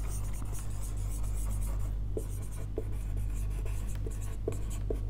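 Marker pen writing on a whiteboard: a run of short, high-pitched squeaky strokes with brief pauses between words.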